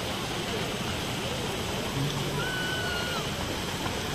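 Steady rushing hiss of many fountain jets spraying into a lake, with faint crowd chatter underneath.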